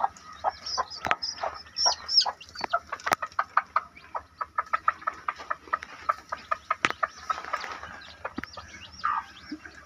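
Broody hen clucking in short, rapid repeated calls, several a second, mixed with the high peeping of day-old chicks.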